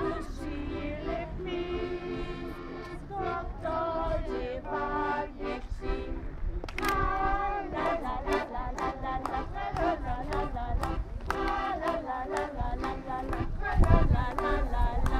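A piano accordion playing a folk tune with a group of children singing along. From about halfway, sharp regular beats keep time with the music as the dancers start to move.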